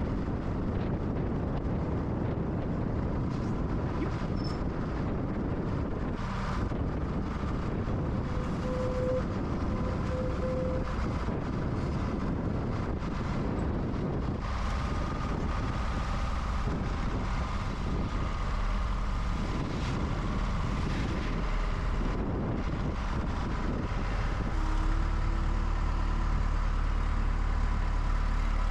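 Telehandler engine running steadily while its boom raises a framed wall upright, with a faint thin whine joining about halfway through.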